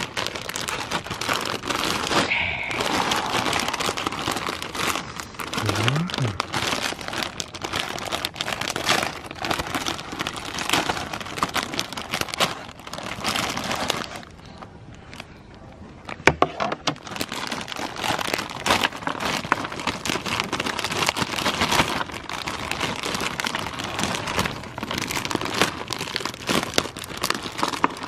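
Plastic wrapper of a large biscuit packet crinkling and crackling as it is handled and pulled open, with a quieter pause about halfway through.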